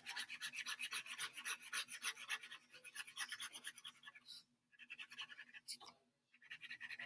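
Black pen scratching on paper in quick back-and-forth hatching strokes, about five a second, shading in the dark patches of a drawing; after about two and a half seconds the strokes come in shorter spells with pauses between.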